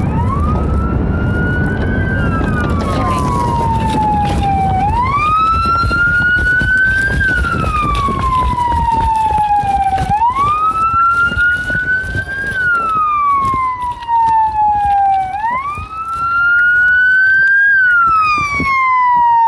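Police car siren on a wail setting, sweeping slowly up and down in pitch about every five seconds, four times over. The squad car's own road noise rumbles underneath for the first few seconds, then drops away.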